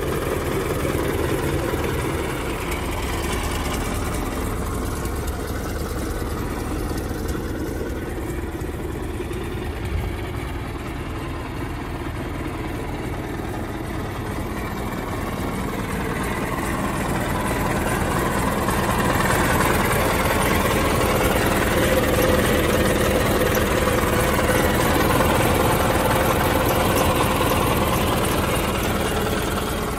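Kohler engine of a 1983 Argo 8-wheeler amphibious ATV running at idle, steady, growing louder for several seconds in the second half.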